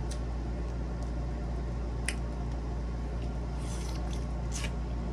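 Wet, squishy eating sounds from a seafood boil being handled and chewed, with a few sharp clicks, over a steady low hum.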